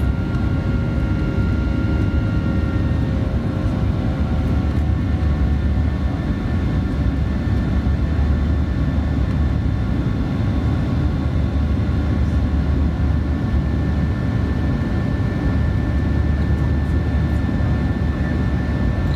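Boeing 737-900 cabin noise: a steady low rumble and rush of the CFM56 jet engines and airflow, with several steady whining tones over it. One high whine fades a few seconds in, and another comes in about twelve seconds in.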